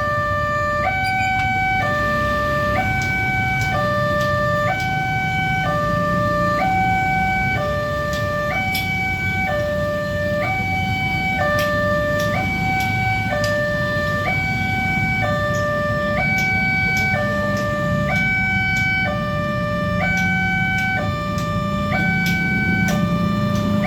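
Railway level-crossing warning siren of an uncommon two-tone type, sounding a steady hi-lo alternation between two pitches, the signal that the crossing gates are closing for an approaching train. A low steady rumble sits underneath.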